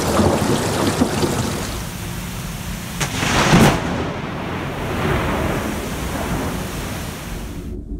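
Thunder rumbling under heavy rain. About three seconds in comes a short, loud burst of noise, and steady rain noise carries on after it.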